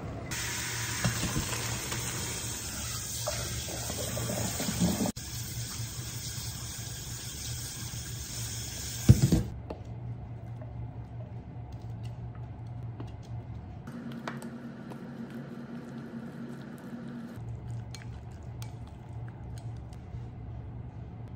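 Kitchen tap running hard into a sink for about nine seconds, ending with a sharp clank. Then quieter sounds of a thick dressing being scraped from a container into a glass bowl and stirred in with chopsticks.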